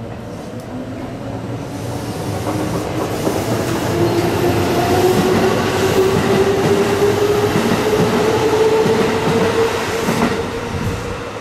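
Keikyu electric train pulling away and accelerating: its motor whine rises steadily in pitch over a running rumble of wheels on rail. The sound builds to a peak past the middle, then fades near the end.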